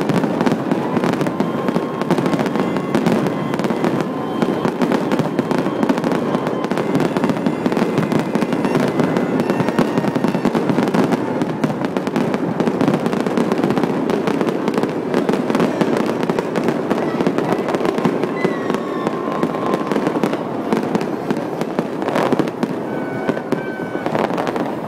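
A dense, continuous aerial fireworks barrage: many shells bursting and crackling at once, in rapid overlapping bangs that keep up at a steady intensity without a break.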